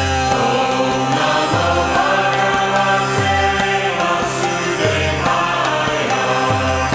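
Devotional mantra chant music: voices chanting over sustained drone tones, with a low beat recurring about every second and a quarter.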